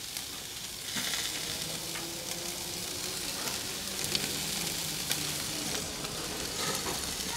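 Marinated chicken sizzling on a hot charcoal barbecue grill. The sizzle grows louder about a second in, with a few sharp crackles through it.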